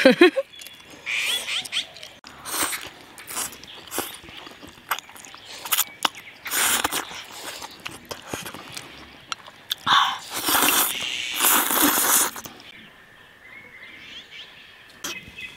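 Thick hand-rolled noodles being slurped and chewed, with several loud slurps about a third of the way in and again two-thirds of the way in, among small wet mouth clicks. Near the end it goes quieter, with faint bird calls.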